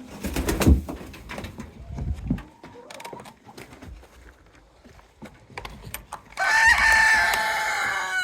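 A rooster crowing loudly once, a held call of about two seconds near the end, after a few knocks and handling noises earlier.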